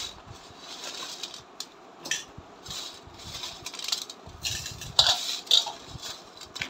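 Hands scooping and scraping rock-salted bitter gourd slices across a stainless steel plate, in irregular rustling, scraping bursts with light clinks against the metal.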